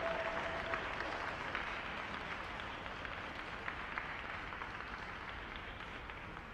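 Audience in a half-empty ice arena applauding, the clapping gradually dying away. A held tone fades out under it about a second in.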